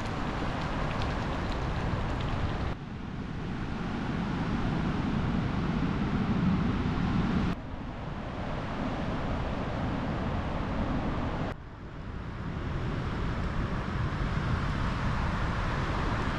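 Storm-force wind rushing through pine trees and buffeting the microphone in a steady rough roar. Its level drops abruptly three times.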